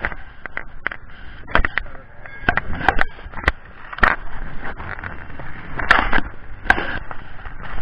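Ride noise picked up by an action camera on a moving motorcycle: a steady rushing hiss broken by irregular sharp knocks and crackles.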